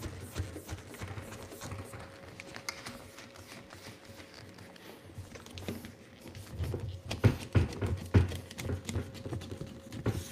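Rubber door gasket of a chest freezer being pressed by hand into the grooves around the lid: scattered soft taps and knocks, with a cluster of louder thumps about seven to eight seconds in.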